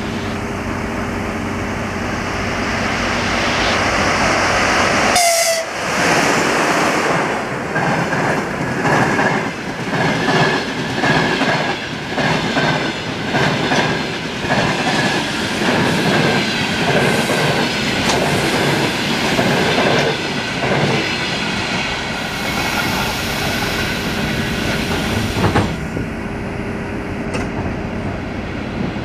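An EP2K electric locomotive and its passenger coaches passing close by: a building rumble as the train approaches, then the steady clickety-clack of wheels over rail joints as the coaches roll past. The sound drops away near the end as the train moves off.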